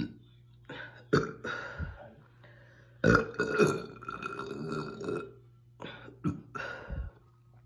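A woman burping repeatedly, brought on by drinking carbonated Diet Coke: one burp about a second in, a long drawn-out burp from about three to five seconds, then a few short ones near the end.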